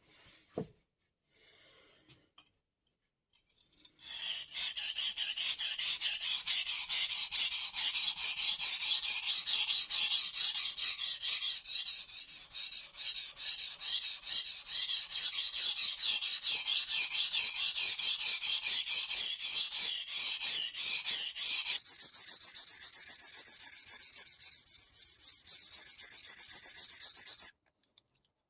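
Steel kitchen-knife blade rubbed rapidly back and forth on a whetstone, a fast, even run of rasping strokes. About three-quarters of the way through the scraping turns thinner and quieter, and it stops abruptly near the end.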